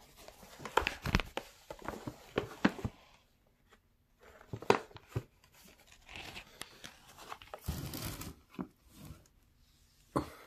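Emoji sticker sheet and red foil gift bag being handled: a run of sharp crackles and tearing sounds in the first few seconds, a few more around the middle, and a longer crinkling about six to nine seconds in.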